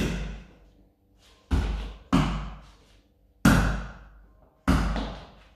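Hand slaps on wall-mounted light-up reaction training pods: five sharp hits at uneven intervals, each fading over most of a second in the room.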